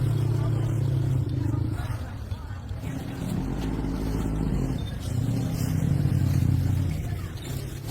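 An engine running with a steady low hum. Its note drops about three seconds in, rises again about two seconds later, then eases off near the end.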